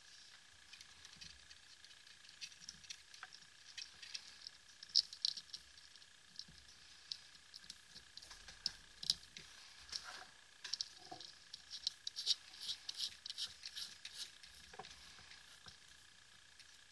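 Fingers and fingernails fitting a rubber switch boot into the BLF Q8 flashlight's aluminium body: irregular small clicks, ticks and scratchy rubbing, thickest in the middle stretch.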